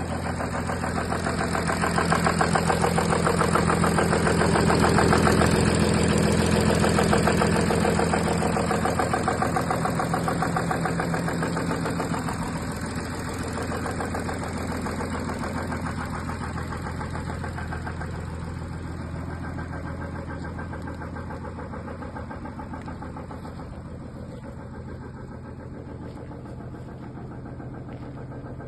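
Audi A6 3.0 TDI V6 diesel engine idling steadily with a fine, rapid diesel clatter, louder over roughly the first twelve seconds and then quieter.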